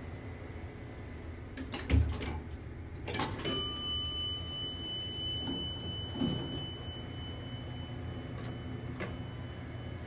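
Elevator chime: a single bright ding that rings on and fades over about three seconds. A low thump comes just before it, and a smaller thump a few seconds after.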